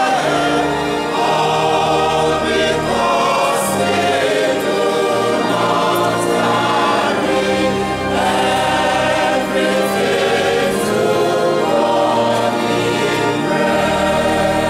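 Church choir singing, many voices together.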